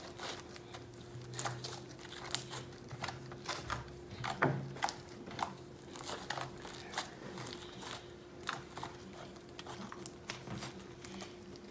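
Fluffy slime being kneaded and pressed by hand, giving many irregular short sticky crackles and pops.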